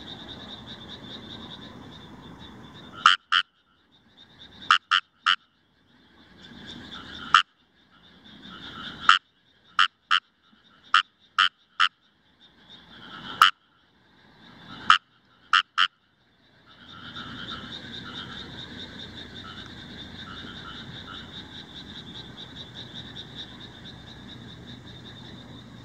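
Kawamura's rice frogs (Fejervarya kawamurai) calling. A close frog gives loud, short, sharp croaks singly and in quick pairs and threes, about fifteen in all over the first two-thirds. A continuous chorus of many frogs runs behind them and carries on alone after the close calls stop, about two-thirds of the way in.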